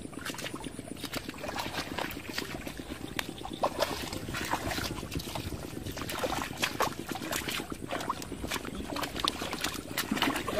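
Bare feet and hands sloshing and splashing through shallow muddy water, a steady run of many small, irregular splashes and squelches as people wade and feel for fish.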